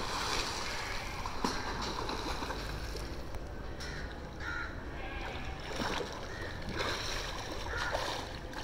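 Pool water sloshing and splashing as a swimmer swims underwater and then surfaces with splashing strokes. A few short bird calls sound over it.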